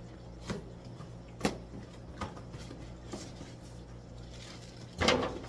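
Knocks and handling noises as a fish shipping box is opened and its flat white lid lifted and set aside, a short knock roughly every second, with a louder scrape about five seconds in. A steady low hum runs underneath.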